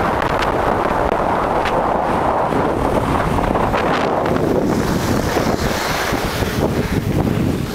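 Loud wind rush on the microphone of a camera carried by a skier moving downhill, mixed with the hiss and scrape of skis over groomed snow.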